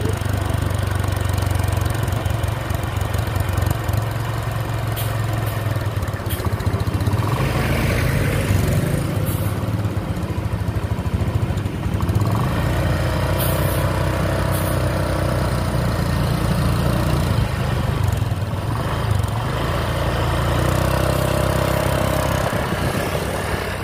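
A vehicle engine running with a steady low rumble, swelling briefly about a third of the way in.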